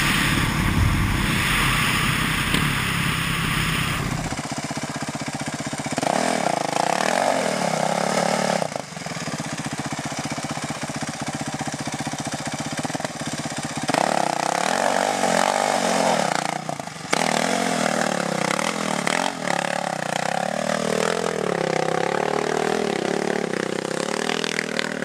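Kawasaki KLX 450 dirt bike's single-cylinder four-stroke engine. For the first four seconds it runs at road speed under heavy wind rush on the microphone. After a cut, it revs up and down hard under load on a steep rocky climb, its note rising and falling again and again.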